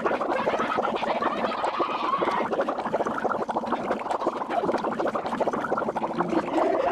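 Sped-up, heavily processed voice track: a rapid, garbled babble with no clear words.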